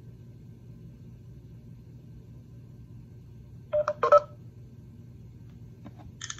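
Electronic beeps from a WebEx video-meeting app, a short burst about four seconds in as the call connects, over a faint steady hum. A brief click near the end.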